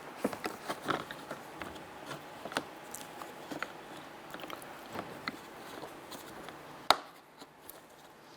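Light plastic clicks and taps of a replacement interior door handle being worked and lined up in its door panel, with one sharper click about seven seconds in.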